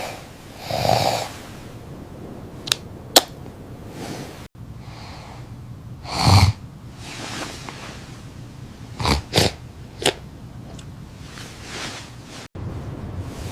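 A person snoring and snorting in irregular breaths, one of them a deep rumble, broken by a few sharp clicks; the sound drops out for an instant twice.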